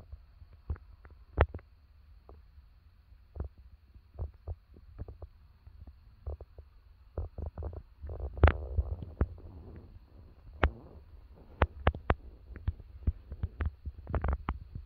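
Handling noise from a hand-held phone: irregular clicks and taps from fingers on the phone over a low rumble, with a short stretch of rustling about halfway through.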